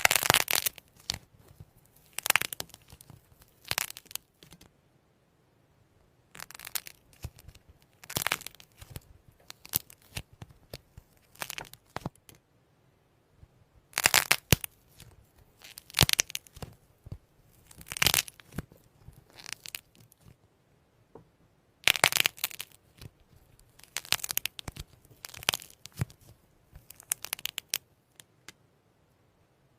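Soft slime being squished and stretched by hand, in short bursts of sticky, crackly noise every second or two with quiet pauses between.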